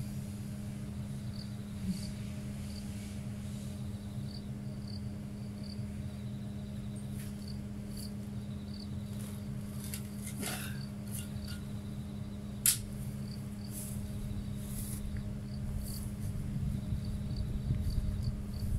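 An insect, cricket-like, chirping in short high repeated calls over a steady low hum. Partway through, a shovel scrapes and clinks in stony soil, with one sharp clink as the loudest sound.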